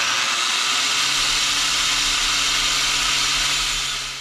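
Corded angle grinder with a braided wire wheel running steadily and wire-brushing rust off a steel brake disc: a loud, scratchy hiss over the motor's hum. It winds down and stops near the end.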